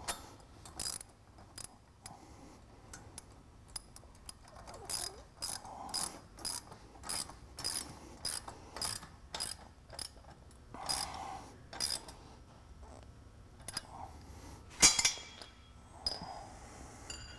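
Socket ratchet wrench clicking in repeated strokes as a bolt is tightened down, with one louder metal click near the end.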